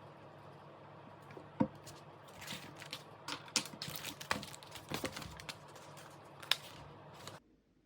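Irregular light taps and clicks over a steady low hum, cutting off abruptly near the end.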